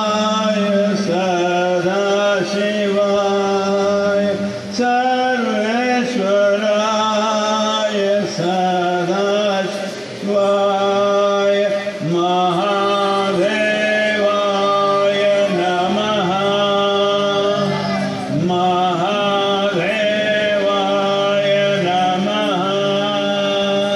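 A man singing a devotional chant with musical accompaniment. His voice holds and bends long notes over a steady sustained drone.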